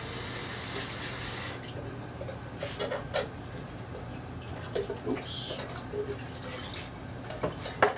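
A short hiss like water from a kitchen tap for about the first second and a half, then scattered knocks and clatter as a tin can of tomatoes is handled and emptied into a pot of sauce.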